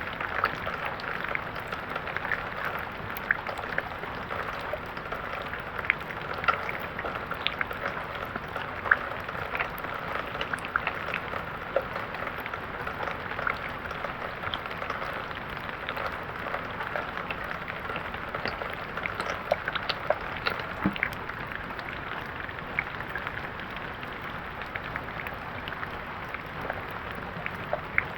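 Steady rain falling: a constant hiss with many scattered, sharp drop ticks.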